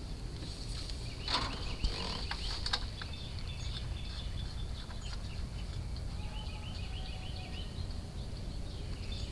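Outdoor background of a steady low rumble with birds chirping, and a few sharp clicks and rattles between about one and three seconds in, from refrigerant gauge hose fittings being handled.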